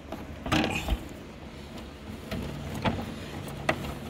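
Plastic front cover of a mini-split air conditioner's indoor unit being pushed hard into its retaining clips: rubbing and scraping, then a few sharp clicks near the end.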